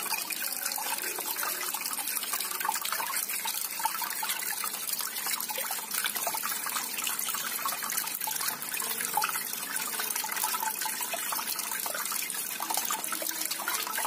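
Small tabletop water fountain running: water cascading down tiers of polystyrene foam blocks and splashing into a pebbled basin, a steady trickling splash.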